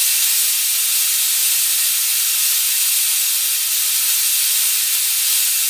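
Loud, steady hiss of compressed air rushing through a venturi vacuum generator as it pulls vacuum for a vacuum chuck on a wood lathe.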